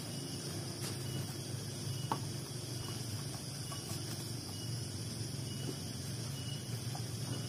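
A steady chorus of insects, crickets or similar, with a low background hum and a few faint scattered clicks and knocks.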